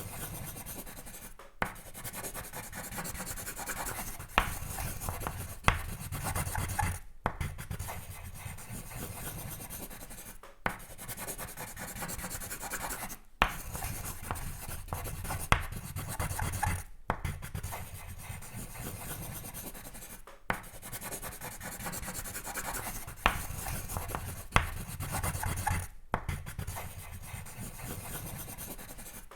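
Sketching strokes on paper: a drawing tool scratching and rubbing continuously, broken by brief pauses every few seconds, with several sharp ticks.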